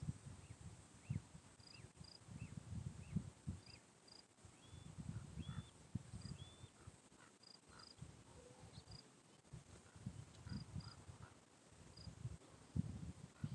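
Faint morning birdsong: short high chirps repeating every second or so, mixed with brief curving whistled notes. Irregular low rumbling comes and goes underneath.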